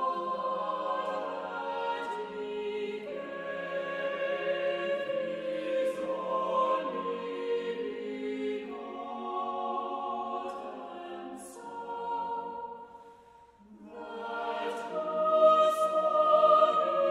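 A choir singing sacred music in slow, sustained chords. The phrase dies away almost to silence about thirteen seconds in, then a new, louder phrase begins.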